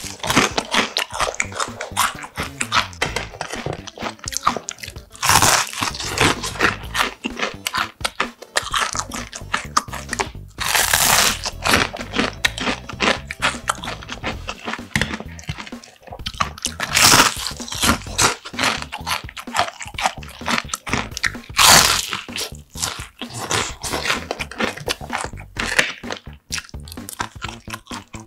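Close-miked crunching and chewing of a crispy breaded, deep-fried sweet potato cheese pork cutlet (donkatsu). Four louder crunchy bites come about every five to six seconds, with continual crunchy chewing between them.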